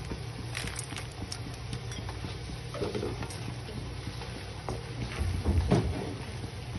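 Spatula stirring dried red chillies, herbs and other masala ingredients roasting in a pan: light scraping and rustling with many small clicks, and a louder thump about five seconds in.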